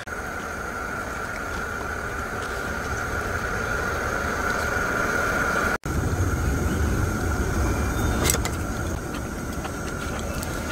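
Portable gas camping stove burner running under a pot of boiling hot-pot broth: a steady rumble with a hiss over it, broken for an instant a little past halfway.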